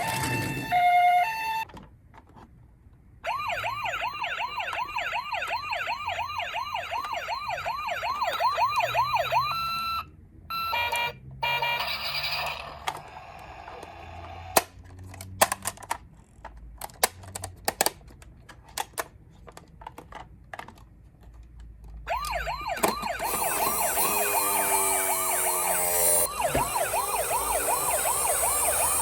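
Electronic sirens of toy ambulance miniature cars: a brief two-note pee-po tone, then after a short gap a fast repeating wail that sweeps up and down. Partway through the sirens give way to scattered clicks and knocks, then near the end several sirens sound at once, overlapping.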